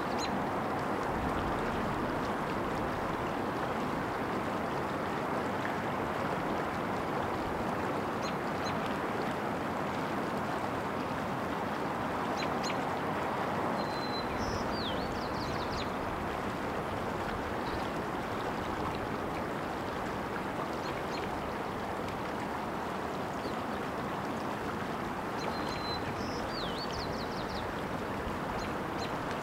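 Water running steadily, a continuous babbling rush. A small bird gives a short, high call phrase twice, about halfway through and near the end.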